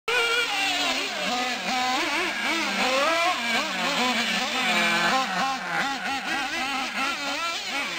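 Two radio-controlled off-road cars' small nitro engines, an Associated RC8 buggy's and an Ofna short course truck's, revving hard and dropping off in quick throttle blips. Their overlapping buzzing pitch rises and falls several times a second.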